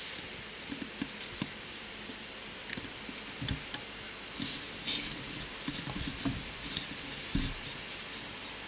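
Railway station ambience: a steady hiss broken by irregular low thumps and a few faint clicks.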